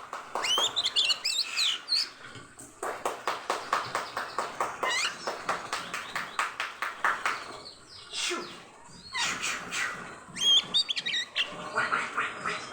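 Oriental magpie-robin (kacer) singing hard in breeding condition: loud whistled notes that glide up and down, broken by a long, fast rattling chatter several seconds long, then more whistles and trills.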